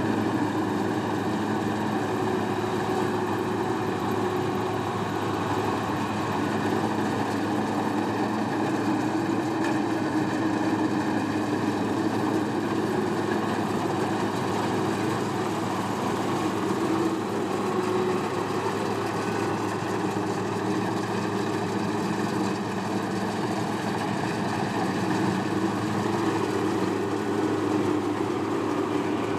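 Engine of a farm machine running steadily at an even speed, a continuous hum that holds level without revving.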